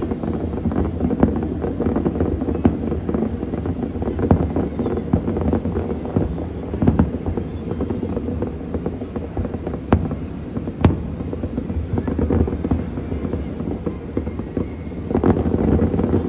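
Distant aerial fireworks going off in an irregular run of bangs and crackles over a steady low rumble, with one sharper crack about eleven seconds in.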